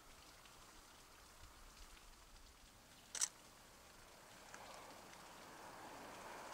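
Faint outdoor ambience: a low, even hiss that swells slightly near the end, with one short, sharp high-pitched sound about three seconds in.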